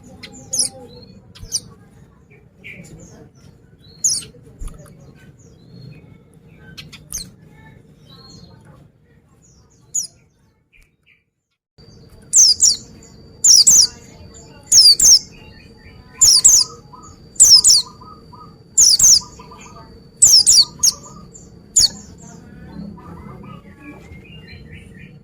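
White-eye (pleci) calling: scattered short, high chirps, a brief break, then a run of about eight loud, sharp high calls repeated roughly every second and a half.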